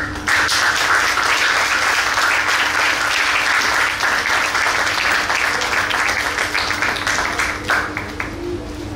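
Audience applauding. It starts suddenly, holds steady for about seven seconds, then dies away into a few last scattered claps near the end.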